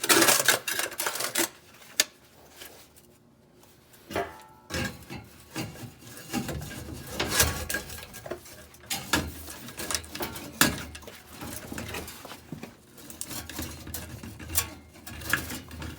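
Exhaust clamps and pipes clinking and scraping as the clamps are slid onto the pipe joints, metal on metal. The knocks and rubbing come at irregular intervals, with a quieter pause a couple of seconds in.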